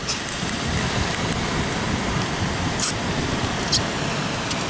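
Steady sea surf washing on a rocky shore, with two short high clicks about three seconds in.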